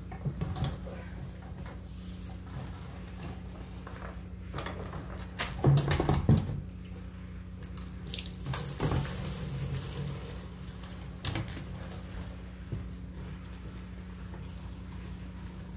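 Soapy liquid pouring and dripping out of a Honda engine into a bucket; the engine is full of soap where its oil should be. A few loud knocks about six seconds in, and a few more shortly after, as the engine is handled.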